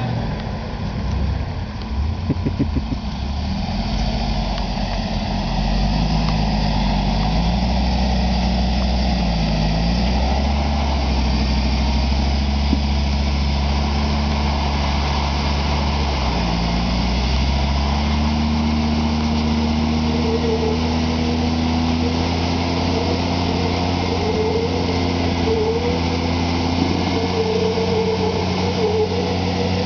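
Engine of a Dodge T-Rex 6x6 truck working hard as it climbs rain-slick rock. Its revs dip and pick up again a few times, then from about two-thirds of the way in it holds steady at higher revs as the truck fights for grip on the wet surface.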